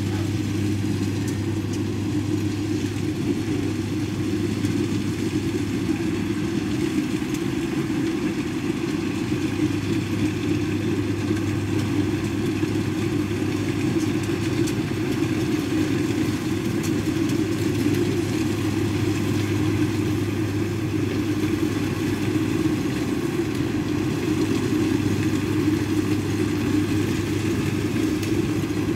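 Kubota DC70 combine harvester's diesel engine running steadily under load while it cuts and threshes lodged rice, a constant low drone with a steady hum beneath.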